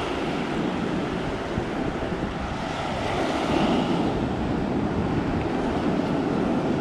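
Surf washing onto a sandy beach, a steady rush of breaking waves with wind buffeting the microphone.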